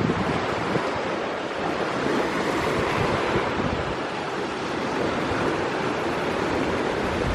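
Sea surf washing in steadily, mixed with wind rushing over the microphone.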